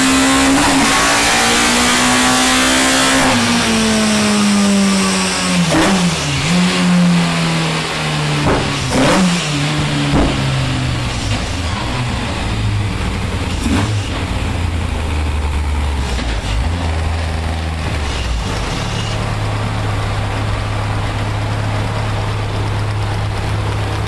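A race-built, naturally aspirated Cosworth engine in a Ford Sierra is held at high revs on a rolling road, then the throttle is let off and the revs fall over several seconds, with a handful of sharp pops and bangs from the exhaust on the overrun. It settles into a steady, lumpy idle near the end.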